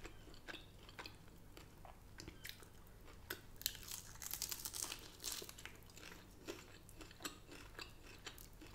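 A person chewing and crunching crispy fried food: many small, sharp crunches, busiest around the middle.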